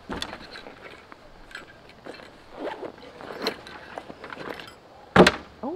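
Scattered footsteps and crunching, with one sharp knock about five seconds in.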